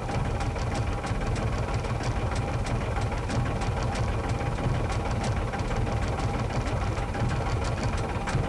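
Vehicle engine idling: a steady low running sound with a rapid, even ticking clatter, about four or five ticks a second.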